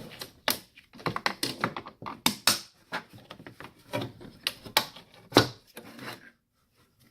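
Irregular clicks, taps and clatter of small plastic and metal parts as a scrapped electronic device is handled and pried apart by hand, with a sharper knock about five seconds in.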